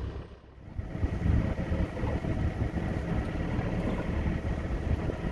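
Small fishing boat's inboard engine running steadily at idle, a low rumble that rises back after a short dip about half a second in.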